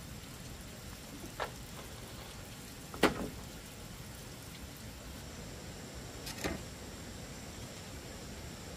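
Green bamboo poles knocking against each other and the ground as they are set down on a pile: three separate knocks, the loudest about three seconds in, over a faint steady hiss.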